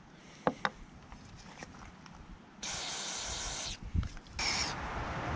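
Aerosol mass airflow sensor cleaner sprayed through its straw onto the sensor in two short hissing shots of about a second each, with two light clicks before them.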